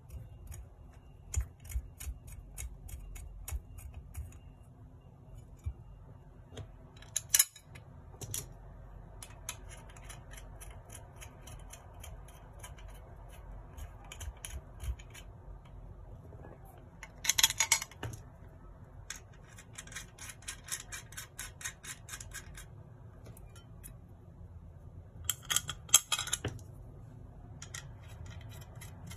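Small brass parts and steel screws of a Stirling engine model kit being handled and screwed together: light metallic clicking and fast runs of ticks as screws turn into brass standoff pillars, with a few louder clattering bursts about 7, 17 and 26 seconds in.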